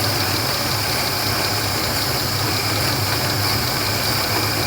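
1996 Toyota Camry V6 engine idling steadily under the hood, with a misfire that the mechanic traces to a vacuum leak on bank 2.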